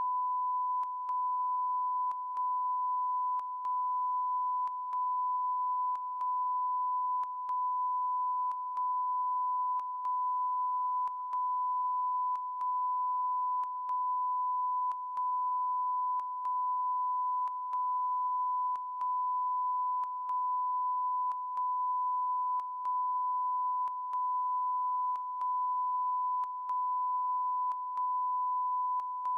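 A continuous electronic beep tone at one steady pitch, like a broadcast line-up tone stuck on the news sound feed. It is broken by a brief click and dropout about every second and a quarter.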